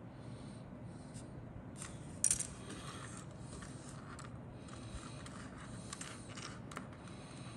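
Small hard plastic model-kit parts clicking, tapping and scraping against each other and the cutting mat as they are handled and set down, with one sharper click a little over two seconds in.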